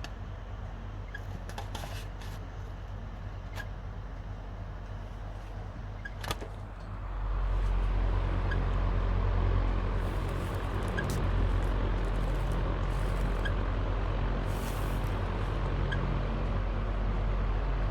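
Panasonic F-MX405-BC stand fan running with an abnormal low drone, the fault noise that starts and grows while the fan runs and that the owner is claiming under warranty. About seven seconds in, the drone turns suddenly louder and rougher, with faint ticks about once a second.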